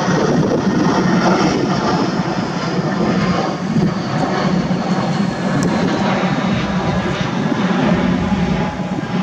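An airplane passing overhead: a loud, steady engine noise with a faint high whine that slowly falls in pitch over several seconds.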